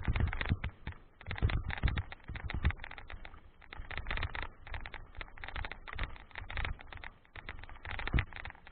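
Mountain bike rolling over loose gravel and stones: a constant irregular rattle of clicks and knocks from the tyres and bike, with a few heavier knocks from bigger stones.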